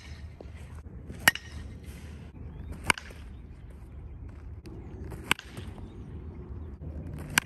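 Baseball bat striking pitched balls: four sharp, ringing cracks about one and a half to two and a half seconds apart.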